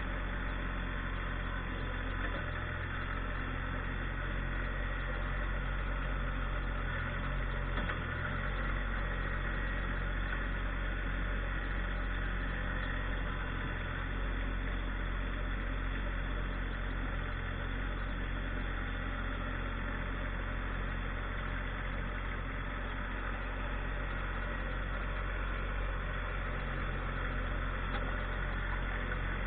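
Tractor engine running steadily, a low, even drone with slight changes in pitch now and then.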